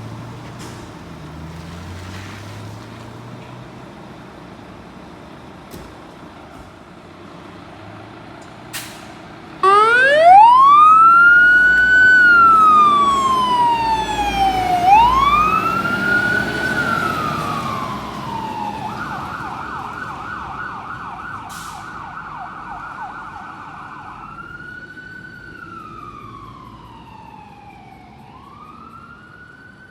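Fire pumper's siren cutting in abruptly with a rising wail that sweeps slowly up and down twice, switching to a fast yelp about two-thirds of the way through, then back to the slow wail, fading steadily after its loud start. Before the siren, a quieter steady engine rumble with a couple of clicks.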